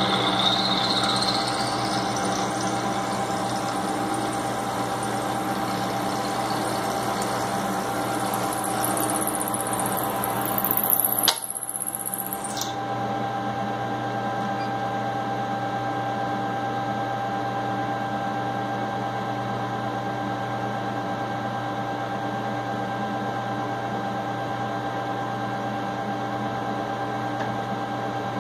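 Milling machine running steadily, its end mill cutting a miter into a metal vise jaw block, with a steady motor hum under the cutting noise. A sharp click comes a little past the middle, after which the high hiss drops away and the running sound is slightly quieter.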